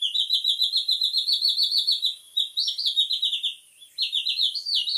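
3D-printed bird water whistle blown in a loud, high-pitched, rapidly fluttering warble like a bird chirp: water in its resonating chamber breaks the airflow into bubbles, making the tone waver. Three blows, with short breaks about two and four seconds in.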